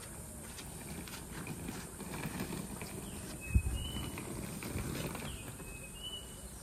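Hard-shell wheeled suitcase pulled along a concrete path, its small wheels rattling and clattering over the rough surface, with one loud thump about halfway through.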